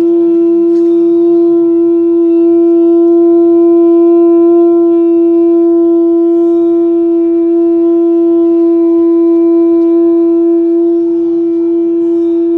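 Conch shell horn blown by a monk in one long, unbroken note at a steady pitch.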